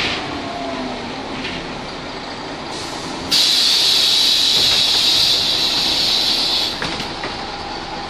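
Ikarus 280 articulated bus with its steady running noise, then, about three seconds in, a loud sharp hiss of released compressed air from the bus's pneumatic system that lasts about three and a half seconds and cuts off abruptly.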